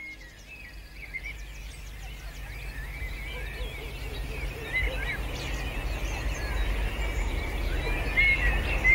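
Many small birds chirping and twittering over a low outdoor rumble, the whole growing gradually louder.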